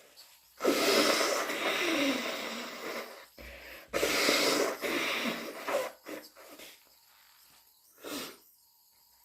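A person sneezing loudly twice in allergic sneezing fits, each a sudden breathy blast that trails off over a second or two, then a smaller breathy sound near the end.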